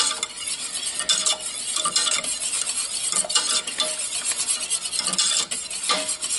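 Wire whisk stirring a thickening milk-and-roux white sauce in a stainless steel saucepan: irregular scraping strokes, with short ringing taps as the wires strike the pan.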